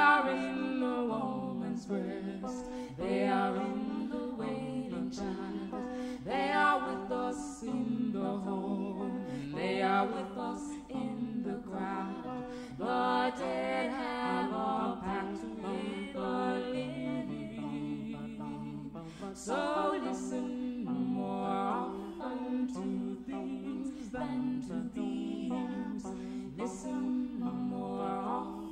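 Vocal music: a voice singing slow, flowing melodic lines over a steady sustained drone.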